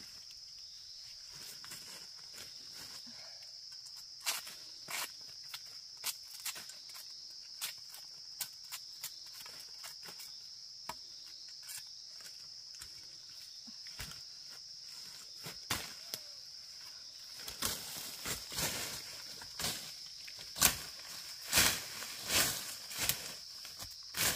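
Insects keep up a steady, high-pitched drone. Over it come scattered knocks and rustles, which come thicker and louder over the last seven seconds or so.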